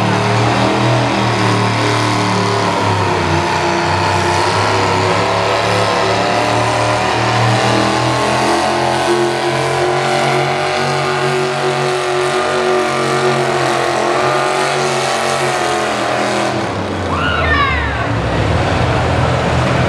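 V-8 engine of a modified pulling tractor running hard under load while it drags a weight-transfer sled. Near the end the engine drops back as the pull ends.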